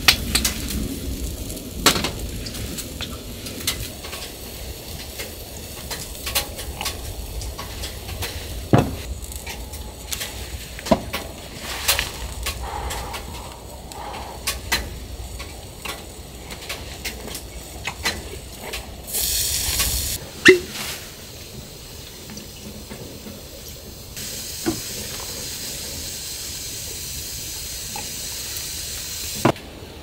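Small camp heater burning with a low steady rumble, under scattered clinks and taps of glass and utensils on the table. A short hiss comes about two-thirds in, and a steadier hiss fills the last few seconds.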